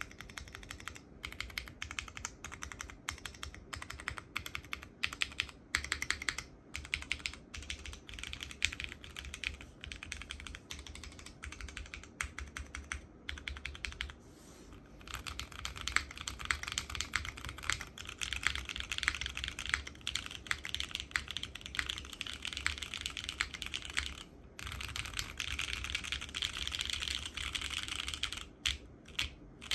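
Continuous fast typing on a Kohaku R2 custom mechanical keyboard with tactile frankenswitches (Cherry Hyperglide housings with Razer Orange stems, lubed and filmed) in a polypropylene leaf-spring plate with no foam and GMK keycaps: a dense run of keystroke clacks, with a short pause about halfway. Its sound is like slightly muted Cherry Brown switches.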